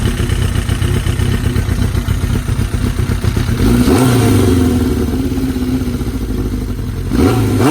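Suzuki GSX-R750 inline-four engine idling with a pulsing beat. About four seconds in it is revved, held up and drops back slowly, with another quick blip near the end. The owner puts the running down to a vacuum leak.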